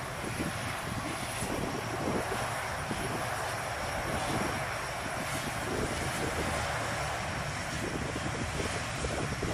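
Turboprop engines of C-130 Hercules transports running steadily at taxi power, a continuous mix of propeller and turbine noise.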